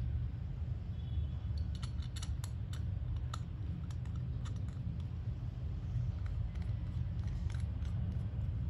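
Light metallic clicks and clinks of a wristwatch being handled, coming in a cluster in the first half and a few more near the end, over a steady low hum.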